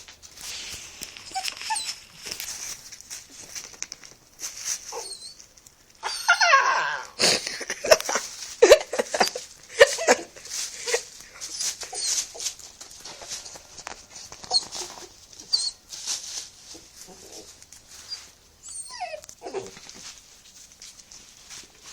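Puppies whining and yelping while scuffling, with many short clicks and scrapes throughout. The loudest stretch comes about six to eleven seconds in, and long whines falling in pitch come about six and a half seconds in and again near nineteen seconds.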